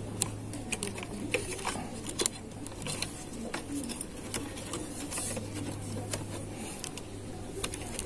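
Irregular light clicks and taps of sheet-metal and plastic parts being handled and pressed into place in an all-in-one PC's chassis, over a steady low hum.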